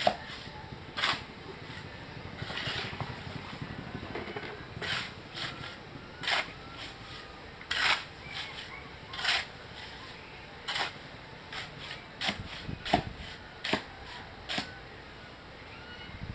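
Shovel scraping and scooping through a heap of material on bare ground, one short gritty stroke about every one and a half seconds.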